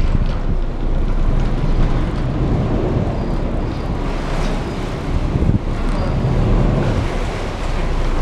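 Catamaran river ferry's engines running steadily while it sits berthed at the pontoon, with wind buffeting the microphone.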